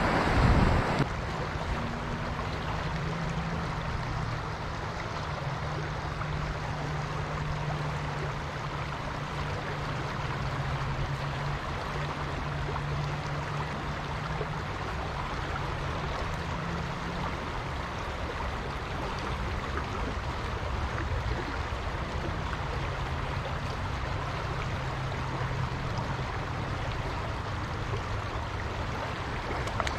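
Steady rush of flowing river water, an even hiss with no change throughout. A brief loud disturbance in the first second, likely handling noise.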